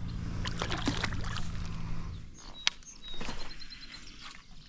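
Water splashing and sloshing with scattered knocks against a kayak as a just-landed pike is handled, over a steady low hum that cuts out about two seconds in. A short high-pitched tone and a quick string of high ticks come near the middle.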